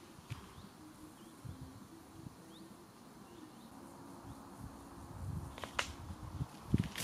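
Faint outdoor ambience with a few short high chirps and scattered sharp clicks, and a louder knock near the end.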